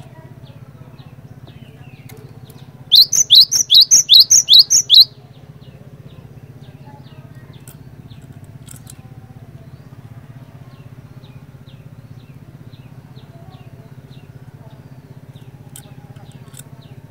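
Cinereous tit (glatik batu) singing: a loud run of about ten quick, sharp whistled notes lasting about two seconds, about three seconds in. Faint, evenly spaced chip notes continue through the rest, over a steady low hum.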